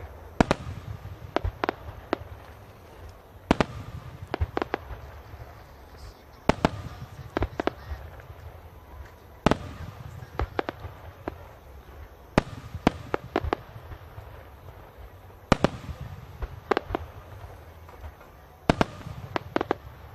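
Aerial firework shells bursting in an irregular string of sharp bangs, about one a second and often in quick pairs, over a low continuous rumble.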